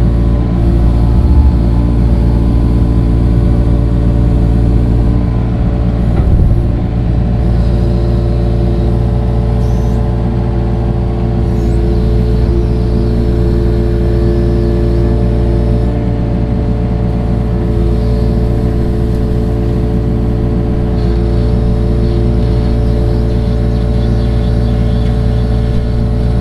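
Engine of a digging machine running steadily at working speed, with a brief louder moment about six seconds in.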